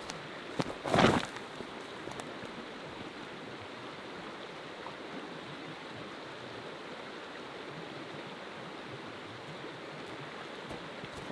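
Steady rushing of a fast mountain creek running high with snowmelt. About a second in, a brief loud knock and rustle close to the microphone as the camera is set down on dry leaf litter.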